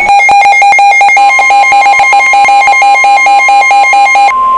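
Emergency Alert System alarm: a rapid, repeating pattern of electronic beeps, joined about a second in by a steady high warning tone of the kind used by NOAA Weather Radio; the beeping stops shortly before the end and the steady tone carries on alone.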